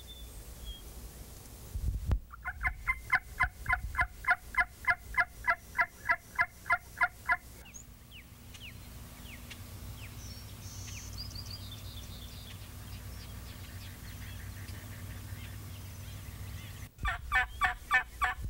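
Turkey yelping on a turkey call: a long, even run of loud yelps at about four a second. Then comes a quieter stretch with faint small-bird chirps, and another short burst of turkey notes near the end.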